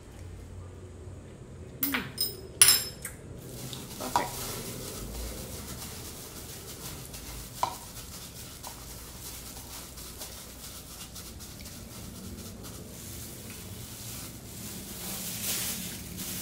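Metal spoon stirring and mashing tuna mayonnaise in a ceramic bowl: a few sharp clinks of spoon on bowl about two seconds in, single knocks later, and soft scraping between. Near the end a thin plastic food glove rustles as it is pulled off.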